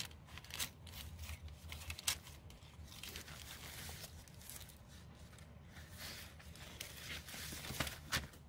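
Hand-dyed paper pages of a small handmade journal being leafed through by hand: rustling and crinkling paper with many sharp flicks and crackles as pages turn and fall.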